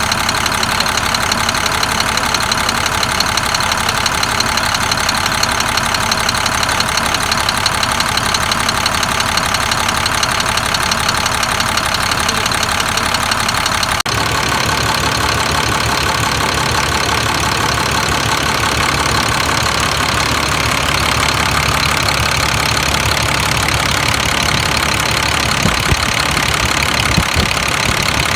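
International DT466 inline-six turbo diesel in a school bus, idling steadily. About halfway through, the sound shifts to a heavier, lower rumble.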